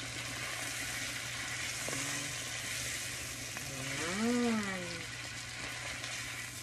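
Prime rib steak sizzling steadily as it sears in melted butter in a frying pan, worked over with a fork. A short hum from a voice rises and falls about four seconds in.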